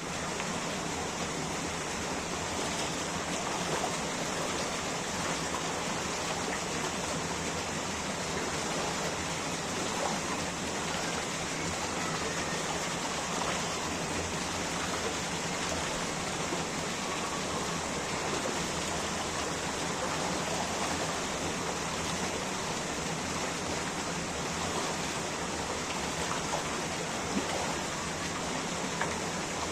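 Running water rushing steadily, with a couple of brief louder splashes near the end.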